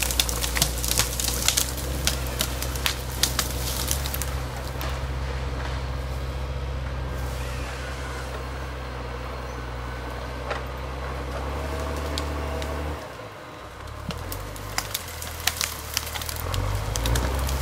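Forestry tractor's diesel engine running steadily under load, with sharp cracks of branches and brush snapping in the first few seconds and again near the end. About two-thirds of the way through, the engine note drops, then comes back rising and falling.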